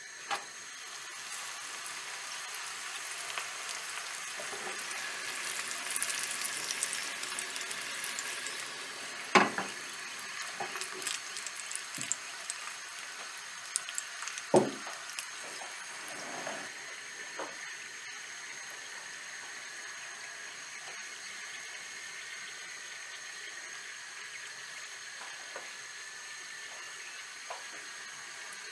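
Oil in a stainless steel pot on a gas stove, giving a steady hiss and sizzle. The sizzle swells for a few seconds as a sheet of pastry is laid into the oil. Two sharp knocks against the pot come about nine and fourteen seconds in.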